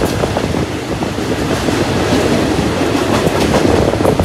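Ordinary passenger train no. 252 running along the rails: a steady rumble with wheel clatter and a few sharp clicks over the rail joints.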